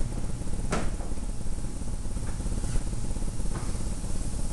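Steady low rumble, with a single sharp click about three-quarters of a second in.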